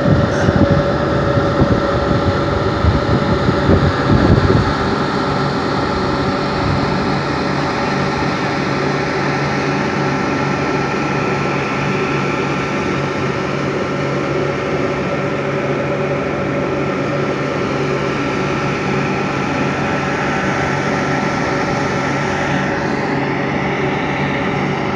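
Machinery of a waste-tyre pyrolysis plant running: a steady mechanical drone of motors and blowers with several held humming tones. The sound is rougher and louder for the first four seconds or so, then settles.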